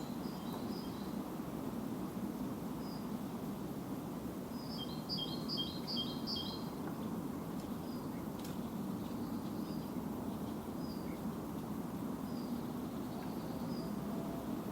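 Songbirds calling in woodland: scattered short chirps, with a quick trill of repeated notes about five seconds in, over a steady low background rumble.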